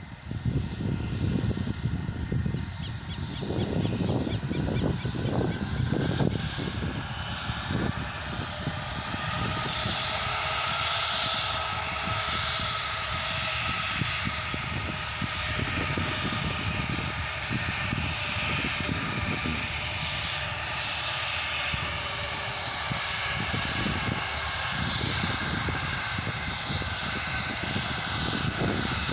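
Airbus A319 jet engines running on the runway: a continuous rushing noise with a steady high whine, strengthening in hiss after about ten seconds. Gusty low rumbling is mixed in during the first several seconds.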